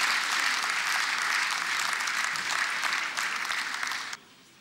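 A seated audience applauding with many hands clapping together; the applause cuts off suddenly about four seconds in.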